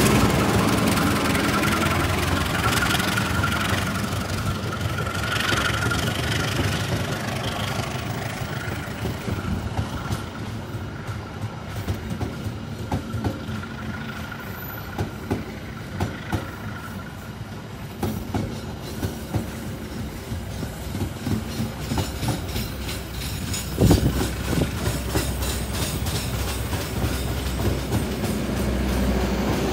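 Train running along the track: a steady low rumble with sharp clacks of wheels over rail joints, the loudest about 24 seconds in, and a faint thin whine in the first half.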